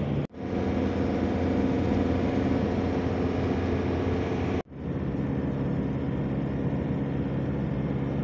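Steady engine hum and road noise of a moving car, heard from inside the cabin. The sound drops out abruptly for a moment twice, about a third of a second in and about four and a half seconds in, where the footage is cut.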